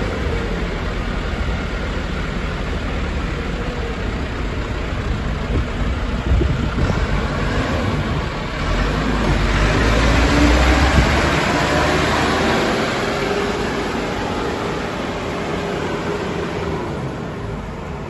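2003 JCB 3CX backhoe loader's four-cylinder diesel engine running as the machine drives past. It grows louder as the loader comes closest about ten seconds in, then fades away.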